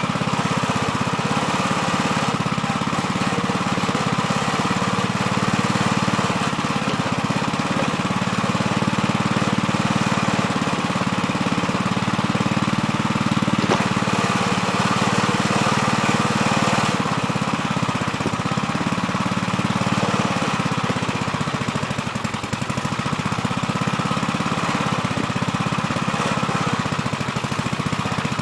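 Gravely Terramite backhoe's engine running steadily while digging, its note shifting a few times.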